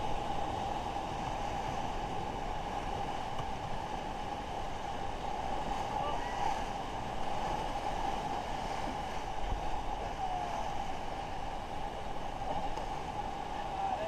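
Steady rush of river water around a rafting boat, with faint voices now and then.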